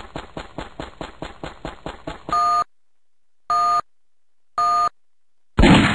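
Race start countdown sound effect: a rapid, even tapping stops about two seconds in, then three short electronic two-tone beeps about a second apart count down, and a loud gunshot-like bang marks the start near the end.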